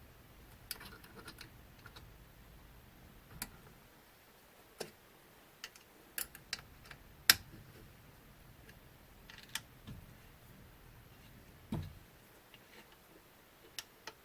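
Scattered sharp clicks and taps, a dozen or so at uneven spacing, from a hand tool working the screws of a CNC router's spindle mount as they are tightened.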